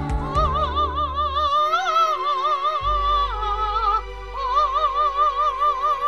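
Two women singing a duet, holding long notes with wide vibrato. The pitch steps down about three seconds in, and a long held note follows from about four seconds on.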